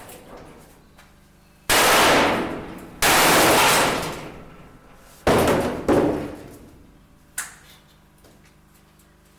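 Four loud, sudden metal clangs on a steel shipping container, each ringing away over about a second, followed by a single short sharp knock near the end.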